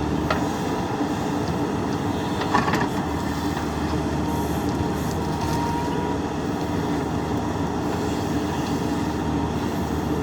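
JCB 3DX backhoe loader's diesel engine running steadily while digging, with a few short metallic clanks from the digging gear, the loudest about two and a half seconds in.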